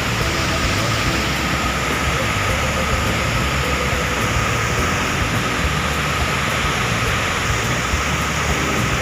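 Steady rushing of Chitrakote Falls, the Indravati River's water pouring over the falls.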